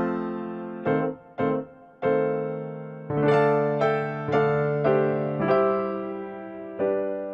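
Background music: a keyboard with a piano sound playing a slow melody of single notes, each struck and left to ring and fade, with the last note held and fading out.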